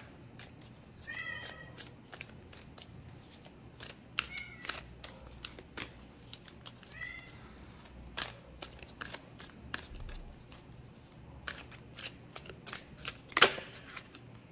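A domestic cat meowing three times, a few seconds apart; its owner guesses it is hungry. Sharp clicks and taps of tarot cards being handled run between the meows, with a louder click near the end.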